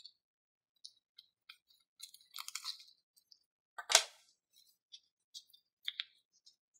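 A glitter-filled latex balloon being snipped open with scissors and squeezed by hand: scattered small clicks and crinkles, a crackly rustle about two seconds in, and one sharp click just before four seconds that is the loudest sound.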